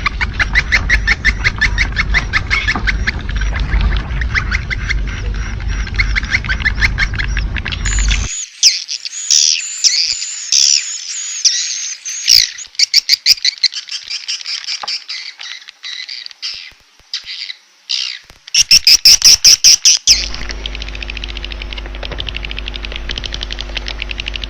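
Swiftlet calls from a recorded call track used to lure swiftlets to a nest house. Fast, dense chirring twitters over a low hum give way about eight seconds in to sharp, high chirps and twittering calls with short gaps. Near the end these change to a fast trill over a steady hum.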